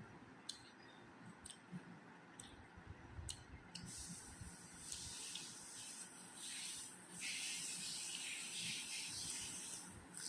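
Close-miked eating sounds from a rice-and-curry meal: a few sharp wet clicks, then, from about four seconds in, several seconds of steady wet, crackly squishing with short breaks.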